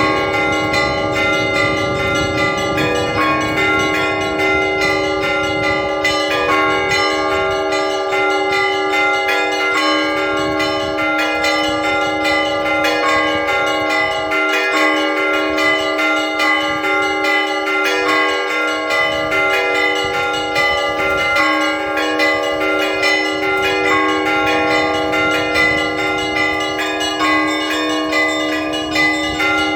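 Russian Orthodox church bells rung for a feast: several bells of different pitches struck in quick succession, their tones overlapping and ringing on without a break.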